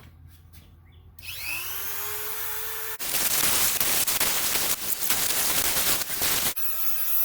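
Variable-speed angle grinder with a thin 0.030-inch cutoff wheel spinning up with a rising whine, then grinding into a tack weld on a steel PTO clutch flange with a loud, harsh cutting noise. Near the end the cutting stops abruptly and the motor runs on free, the wheel having pinched in the cut.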